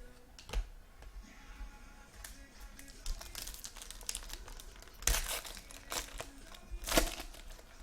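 Foil trading-card pack wrappers crinkling and tearing as packs are ripped open, in irregular sharp crackles, loudest about five and seven seconds in.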